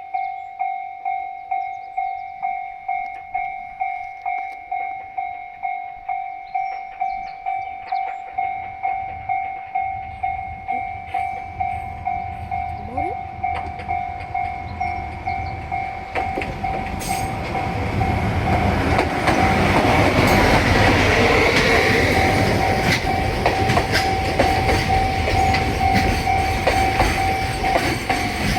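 Japanese railway level-crossing warning bell ringing, an electronic chime pulsing about twice a second. From about ten seconds in, the rumble of an approaching train grows, and from about eighteen seconds the train runs loudly through on the rails with the bell still ringing.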